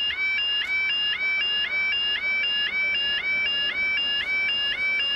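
UK level crossing yodel alarm sounding while the barriers are in operation: an electronic warbling tone that rises and repeats about three times a second, the road-user warning that a train is due.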